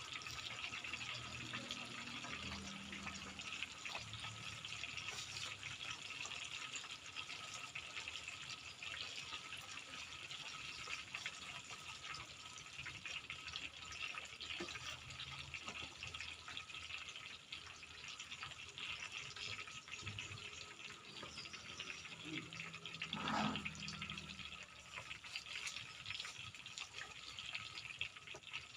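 Tofu frying in hot oil: a steady sizzle with many small crackles and pops.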